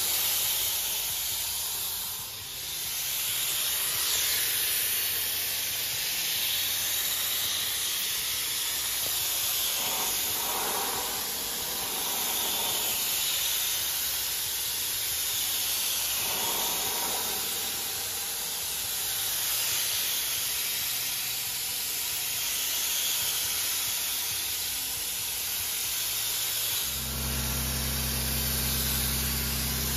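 3M Accuspray 16580 gravity-feed spray gun hissing steadily as compressed air atomises gelcoat, with a brief dip about two seconds in. A low steady hum joins in near the end.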